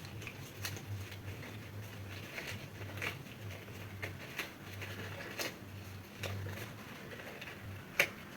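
Faint rustling and scattered light clicks of medical gloves being pulled on and adjusted over the hands, with a sharper click near the end. A low hum comes and goes underneath.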